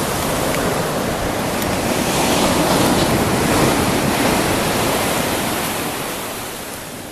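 Ocean surf: a wave breaking and washing up the beach, the rush swelling to a peak midway and then slowly fading as it draws back, with some wind buffeting the microphone.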